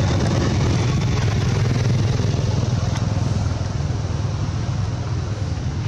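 A steady low engine rumble, as from a motor vehicle running, easing off slightly after about three and a half seconds.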